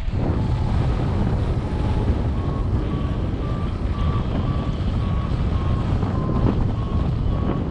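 Air rushing over the microphone in paraglider flight, with a variometer beeping: short beeps that come quicker and slightly higher from about two seconds in, the sign of a stronger climb in lift.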